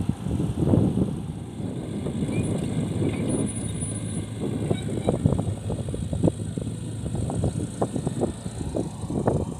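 Mini excavator's diesel engine running steadily at work, with a series of short knocks and clanks from about halfway through.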